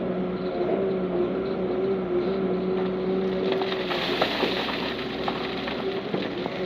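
Heavy diesel engine of earthmoving machinery running steadily. From about three and a half seconds in, a rougher noise and scattered knocks join it.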